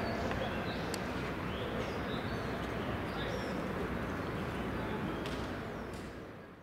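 Open-air ballpark ambience: a steady background hum with faint, brief high chirps scattered through it, fading out near the end.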